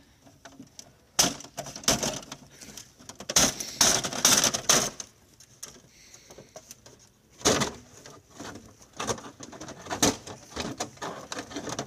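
An old TV's plastic cabinet bumping and scraping against a rotten wooden tree stump as it is set on it, shifted and lifted off, with rustling of dry brush and leaves underfoot. The sounds come as irregular knocks and scuffles, loudest in clusters early on and in the middle.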